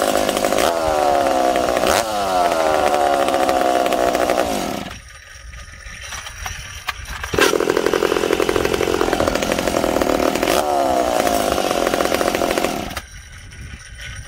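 McCulloch Super Pro 70 two-stroke chainsaw engine, freshly ported and on its first runs with no bar fitted, being revved, its pitch falling back each time the throttle is let go. It stops about five seconds in, is pull-started again about two seconds later and catches at once, revs up and falls back, then is shut off about a second before the end, a short heat cycle to break it in.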